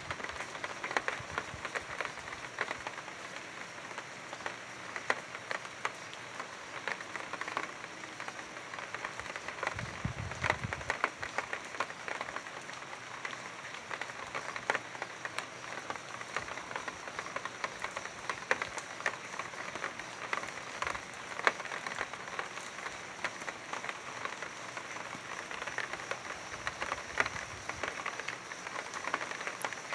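Steady rain falling, with many individual drops ticking sharply on hard surfaces. A short low rumble comes about ten seconds in.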